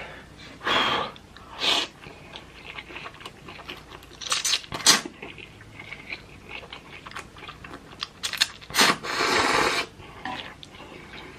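Close-miked eating of ramen noodles: chewing with several louder noisy slurps, the longest lasting about a second near the end.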